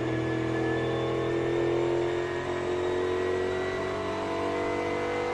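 NASCAR Cup Series car's V8 engine heard from inside the cockpit, running steadily at low speed under the caution, its pitch dipping slightly midway and then holding.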